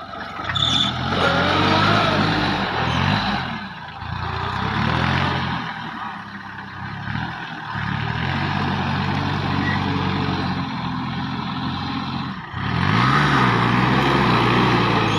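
Sonalika GardenTrac DI-20 mini tractor's three-cylinder diesel engine working under load as the tractor pushes through wet mud, its engine speed dipping and rising several times, with a sharp dip and recovery about twelve seconds in.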